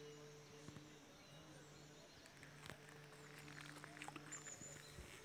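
Faint Buddhist chanting: a low monotone voice held in long phrases with short breaks, with a few faint bird chirps.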